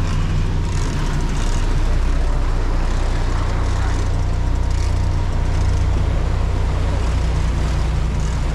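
A fishing boat's engine running steadily with a low hum, under a hiss of wind and water.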